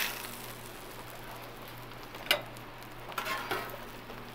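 Metal spatula clinking and scraping on a steel flat-top griddle as chicken strips are lifted off: a clink at the start, a sharper one about two seconds in, and a short run of scrapes a second later, over a faint steady hiss.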